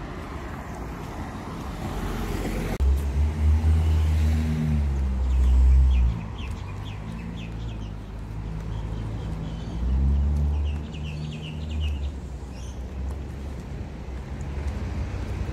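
Road traffic: a vehicle's engine rumble swells as it passes, twice, with short bursts of bird chirping over it.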